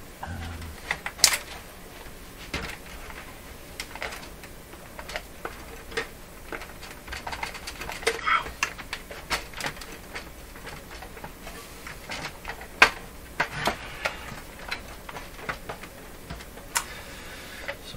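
Irregular clicks, taps and knocks of the sheet-metal chassis and plastic parts of a disassembled Sony HCD-CP300 micro hi-fi being handled and shifted, with a sharper knock about a second in and another about two-thirds of the way through.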